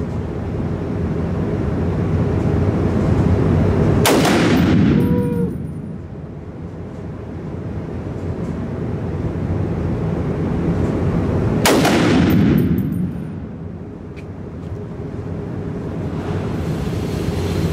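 Two rifle shots, about seven and a half seconds apart, each followed by a short echo in an indoor shooting range, over a steady low hum.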